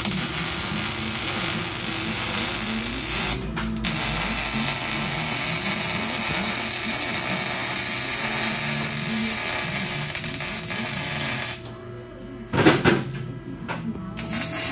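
Welding arc crackling and hissing as an exhaust pipe joint is welded. It runs in two stretches with a short break about 3.5 s in and stops about 11.5 s in. A loud knock follows about a second later.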